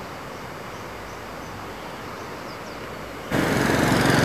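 Steady outdoor background noise, then, about three seconds in, a sudden jump to much louder noise with a low hum.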